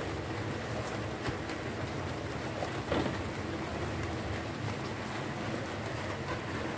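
Steak sizzling on a ridged tabletop grill pan, a steady hiss, with a light knock about three seconds in.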